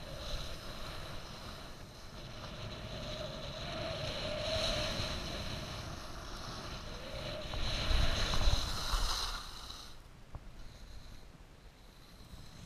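Wind rushing over the camera's microphone and skis sliding and scraping on groomed snow during a downhill run. The rush builds to its loudest about eight seconds in, then drops off sharply about ten seconds in.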